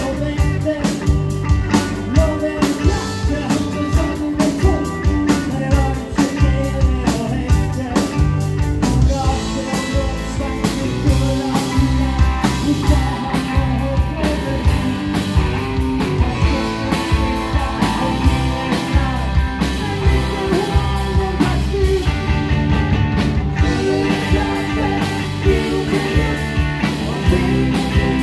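Live rock band playing with electric guitars, bass guitar and drums, keeping a steady drum beat.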